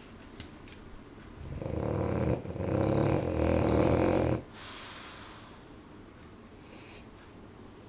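French bulldog snoring: one loud snore starts about a second and a half in and lasts about three seconds, with a brief break partway through, followed by quieter breathing.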